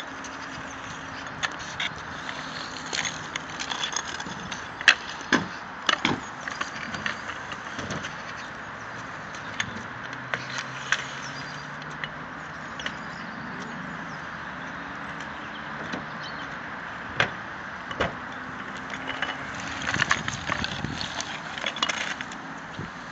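Kick scooters rolling over wet concrete, with scattered clacks and knocks from decks and wheels hitting the ramps, over a steady outdoor hiss. The sharpest knock comes about five seconds in, with another cluster near the end.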